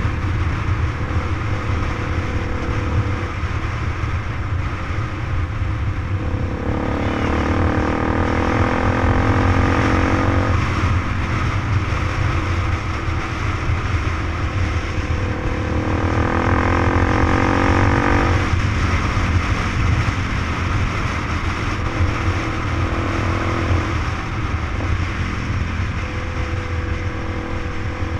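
Motorbike engine running while riding, over a constant low wind rumble on the microphone. Twice, about a quarter of the way in and again past halfway, the engine note climbs for a few seconds as if accelerating, then drops away.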